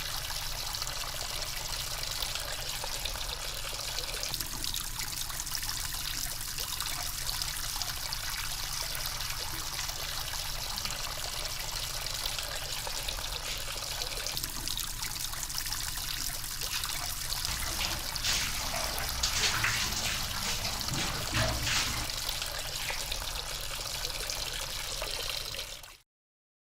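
Water running steadily, a continuous splashing trickle, with a few louder splashes past the halfway point; it cuts off suddenly near the end.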